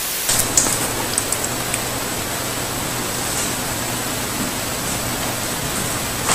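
Steady loud white-noise hiss like a detuned TV's static, starting abruptly and holding level, with a few faint ticks in the first couple of seconds.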